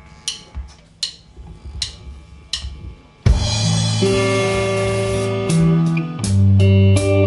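Live rock band starting a song: four evenly spaced ticks from the drum kit count it in, then about three seconds in the band comes in loud together, with electric guitar and bass holding chords over the drums.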